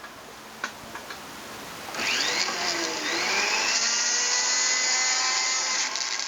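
Small high-speed rotary tool polishing the inside of a silver ring: a few light clicks, then the motor starts about two seconds in, its whine rising in pitch and then running steady.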